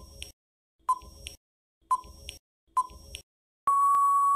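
Quiz countdown-timer sound effect: a short beep-tick once a second, four times, then a long steady beep about three and a half seconds in as the time runs out.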